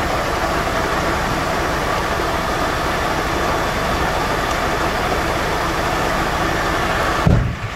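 Fire engine's engine running steadily at close range, a continuous mechanical hum. A brief low thump comes near the end.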